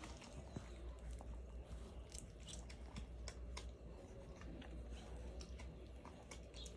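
Australian cattle dog puppies about four weeks old making faint chewing and smacking mouth sounds, with many small irregular clicks.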